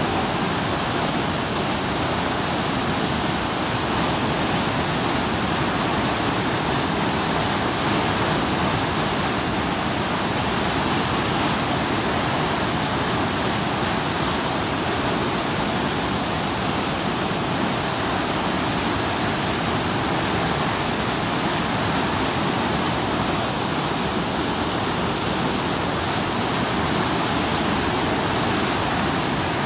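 River in flood, its muddy water rushing past in churning rapids: a steady, loud rush of water that does not change.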